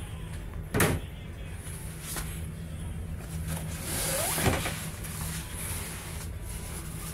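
Wooden cupboard door knocking as it is opened, a sharp bang about a second in and a lighter click a second later. Then an immersion suit's nylon bag rustles and scrapes as it is dragged off the shelf. A steady low hum runs underneath.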